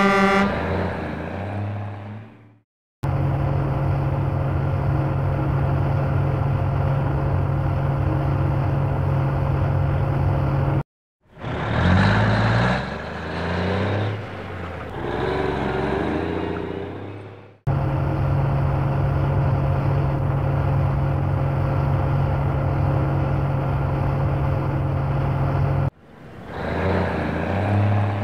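Truck sound effects in separate clips with hard cuts between them. A horn blast fades out at the start, then a heavy diesel engine runs steadily with a low hum. Between the steady stretches come passages of revving whose pitch climbs and falls.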